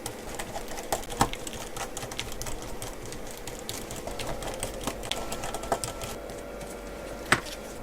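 Small irregular clicks and taps of hand tools on a smartphone's internal parts during a teardown, with two sharper clicks, one about a second in and one near the end.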